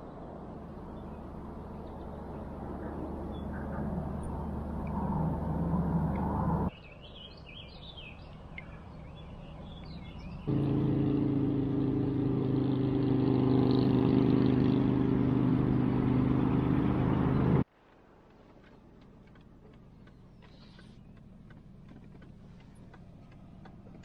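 Vehicle engine running through a series of cut-together clips. It starts as a steady low hum that grows louder over the first six seconds. A quieter stretch with bird chirps follows, then a louder engine drone with a steady pitch from about ten to eighteen seconds in, and finally faint outdoor quiet.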